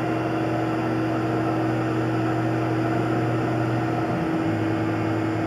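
Tormach PCNC 1100 CNC mill running: a steady hum with a constant whine above it, the low hum dropping slightly in pitch about four seconds in.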